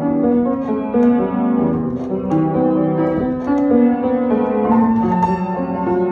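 Upright piano played with both hands: a continuous stream of notes, with chords and moving lines mostly in the middle register.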